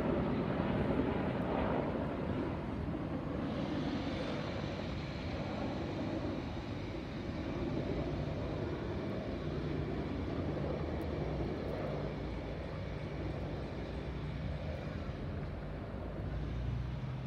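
Two helicopters flying past in the distance: a steady drone of rotors and engines that eases off slightly as they draw away.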